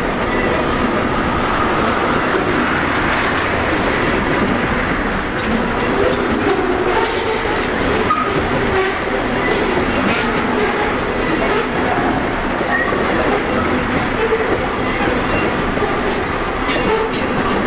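Freight cars of a heavy train just getting underway rolling past: steel wheels clicking over the rail joints, with short scattered wheel squeals and an occasional sharp clank.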